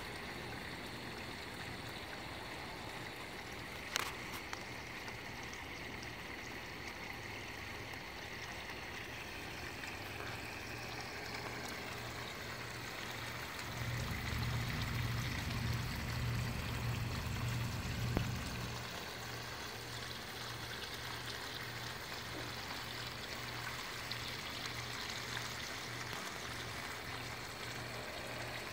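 Water from a small koi-pond waterfall pouring in thin streams off a rock lip and splashing into the pond, a steady trickle. There is a single click about four seconds in and a low rumble for about four seconds midway.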